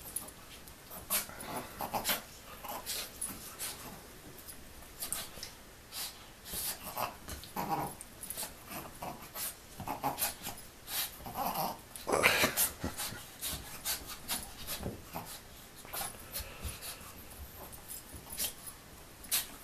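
A small dog and a ferret play-fighting on a couch: scuffling and scratching on the cushions with the dog's short growls and breaths. A louder outburst comes a little past the middle.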